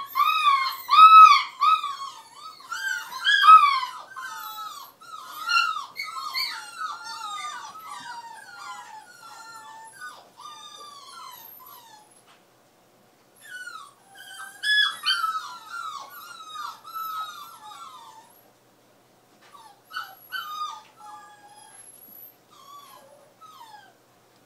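Nova Scotia duck tolling retriever puppy whining and yelping in quick, high-pitched, rising-and-falling cries, several a second. The cries are loudest in the first few seconds, break off briefly about twelve seconds in, flare up again around fifteen seconds, and then thin out.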